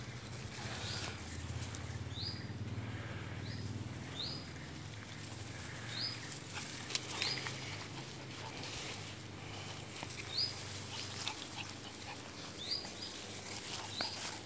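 Small dogs moving and sniffing through grass, with scattered light clicks and rustles. Short high rising chirps repeat at intervals of about a second, and a low hum fades out after the first few seconds.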